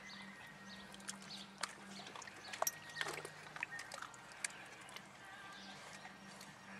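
Mini dachshund wading in a shallow plastic kiddie pool, making small splashes and sloshing as she snaps and bites at the water, with the sharpest splashes about two and a half to three seconds in.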